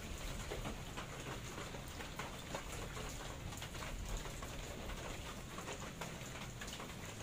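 Steady rain falling, an even hiss with faint scattered taps of drops.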